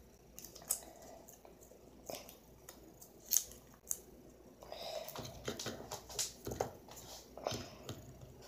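Handling noises: scattered light clicks and taps, becoming a denser run of tapping and rustling from about five seconds in.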